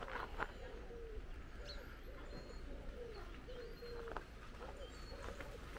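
A pigeon cooing, a run of soft low coos repeating throughout, with a couple of light clicks near the start.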